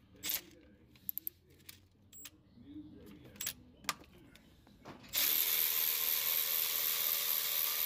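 Ratchet clicking and metal tools clinking against the engine, then, about five seconds in, a power ratchet runs steadily with a constant whine and hiss as it backs out a bolt around the water pump and thermostat housing.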